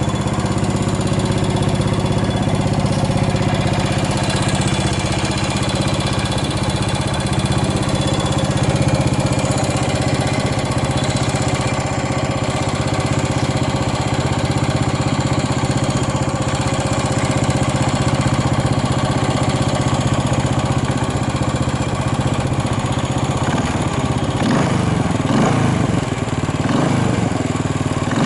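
Yamaha SR400's air-cooled single-cylinder four-stroke engine idling steadily, then blipped on the throttle a few times near the end, revs rising and falling. It runs cleanly, with no abnormal noises.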